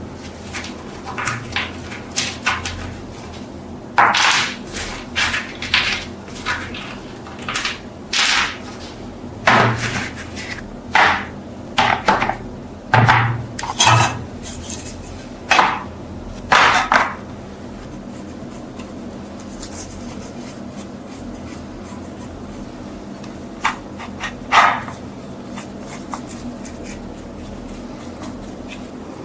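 Sharp metallic clinks and knocks of metal parts and tools being handled and set down, each with a brief ring. They come one after another for the first half, and two more follow later, over a steady low hum.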